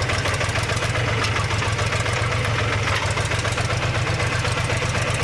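Mahindra tractor's diesel engine running steadily, with an even low throb.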